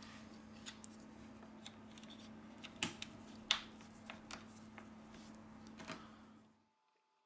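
Scattered small clicks and taps of tools and plastic phone parts being handled during smartphone reassembly, over a steady low hum. The sound cuts off to near silence about six and a half seconds in.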